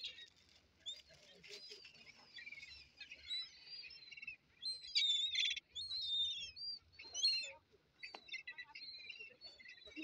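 A crowd of birds calling over one another in short, high chirping calls, busiest and loudest about five seconds in, with another loud call a little past seven seconds.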